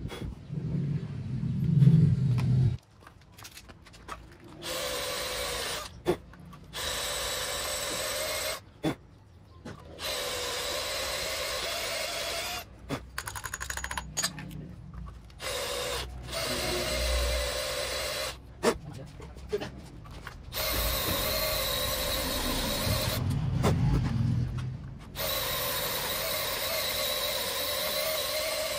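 Electric power drill running in repeated start-stop bursts of one to five seconds each, with a steady pitch, and a few sharp clicks in the pauses.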